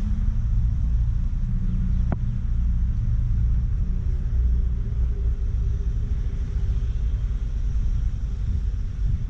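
Steady low rumble of a motor vehicle driving, with engine and road noise and a single sharp click about two seconds in.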